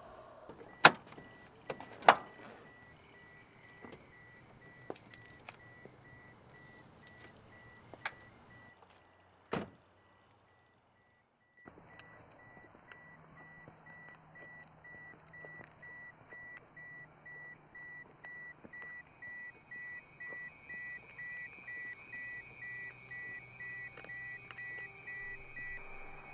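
A car's warning chime beeping steadily, a little faster than once a second, louder in the second half. Two sharp knocks come near the start and a heavy thud about ten seconds in.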